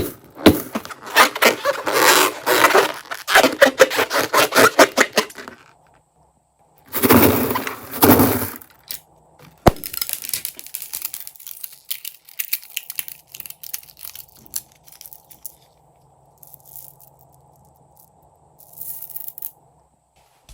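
Crunchy slime being squished and pressed, giving rapid crackling and crunching: a long run of crackles, a second dense burst about seven seconds in, then scattered lighter crackles that fade out.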